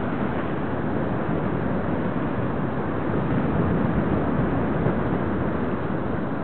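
Wind from the paraglider's flight rushing over the camera's microphone: a steady, deep rushing noise with no breaks.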